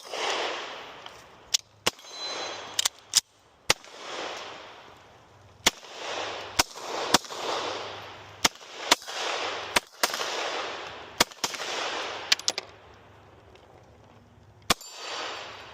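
Gunshots from a firearm at an outdoor range, about fifteen single shots at uneven spacing, some in quick pairs, each followed by a rolling echo that dies away over a second or two.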